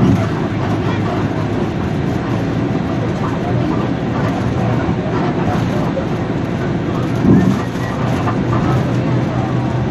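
Cabin noise inside a Higer KLQ6930G city bus on the move: steady engine drone and road noise with scattered small rattles, and one short louder thump about seven seconds in.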